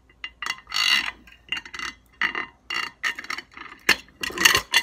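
Small metal parts being handled on a wooden workbench: washers, nuts and a threaded rod clinking and scraping against each other and against a motorcycle clutch cover. Irregular sharp clicks, with a longer scrape about a second in and a quick cluster of clinks near the end.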